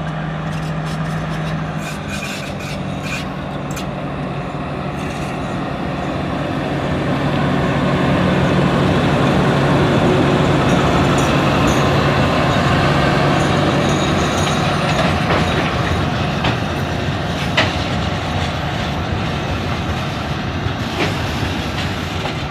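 Alsthom diesel-electric locomotive with a Caterpillar engine running as it passes close by, hauling loaded stone hopper wagons. The engine is loudest about a third of the way in, and a few sharp wheel clicks come from the wagons rolling by in the second half.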